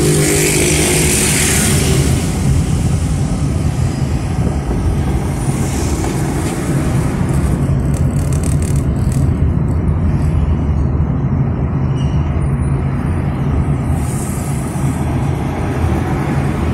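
Steady engine hum and road noise of a car driving along a city street.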